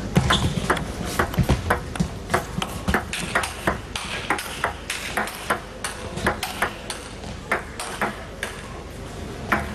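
Table tennis ball clicking off rackets and the table in a continuous rally, about two to three sharp hits a second.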